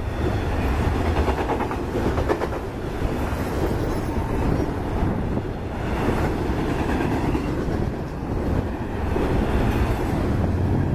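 Intermodal freight cars rolling past on steel rails: a steady rumble of wheels on track, with wheels clicking over rail joints.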